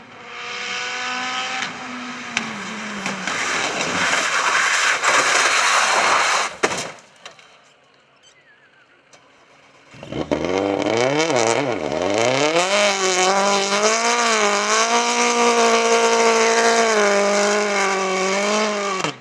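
Rally car running hard along the stage with loud engine and tyre noise, cut off abruptly about seven seconds in. After a quieter gap, a rally car's engine revs down and up, then holds at high, wavering revs with wheelspin as the car drives out of a grass field after going off the road.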